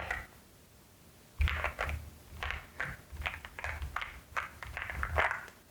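Mechanical keyboard keys with Nimbus V3 switches pressed one at a time, a dozen or so short clicky taps at an uneven pace, starting about a second and a half in.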